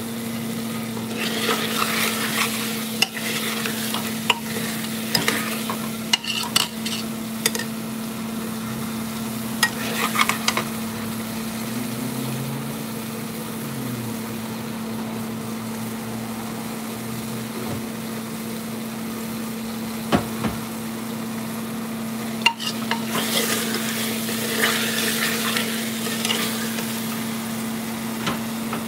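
A steel ladle stirring and scraping a thick masala sizzling in an aluminium pressure-cooker pot, in several spells, with sharp clinks of the ladle against the pot. A steady hum runs underneath.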